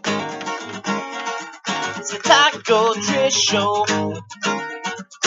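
Short intro jingle on acoustic guitar, plucked and strummed, with a voice singing over it.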